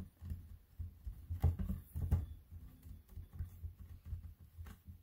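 Hands pressing and tapping a stacked block of polymer clay on a craft mat to square it up: soft, irregular low thumps with a few light taps.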